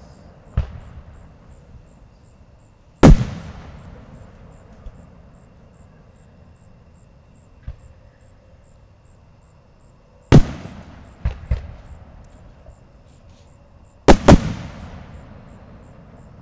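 Aerial fireworks going off: sharp, loud booms, each trailing off in an echo. The biggest come about three seconds in, about ten seconds in, and as a quick double near the end, with smaller pops in between.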